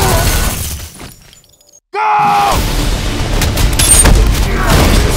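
Action-film trailer sound mix: gunfire and crashes over a low rumble fade out to near silence about a second in. A sudden loud hit comes in about two seconds in, followed by a run of impacts and booms.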